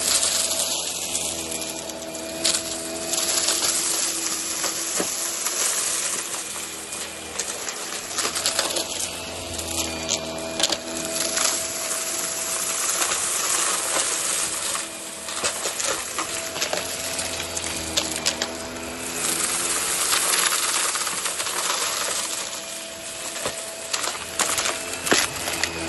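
Hart cordless stick vacuum running on carpet, its motor pitch shifting as the head is pushed back and forth. It sucks up fluff and hard debris, which rattle and click sharply through the head.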